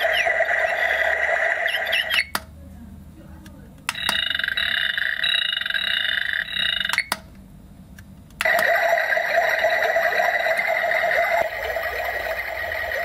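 Color-changing digital alarm clock's small built-in speaker playing its nature-sound samples one after another, three in turn, each a few seconds long with a short pause and a click between them, about 2 and 7 seconds in. The middle sample has quick repeated chirps; near the end the clock's alarm is ringing.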